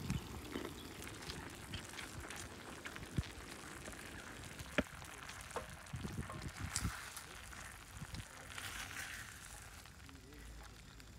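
Glazed meat sizzling and crackling in sauce in a small frying pan on a camping gas burner, with a few sharp clicks and light knocks as chopsticks turn the pieces against the pan.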